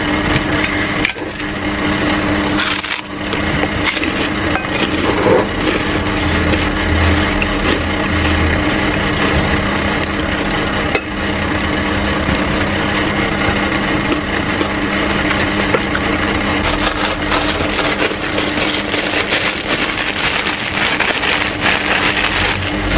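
Crisp cracking and crunching of a kerupuk (fried cracker) being broken apart by hand over a plate of rice, many small crackles in a dense run, over a steady low hum that stops about two-thirds of the way through.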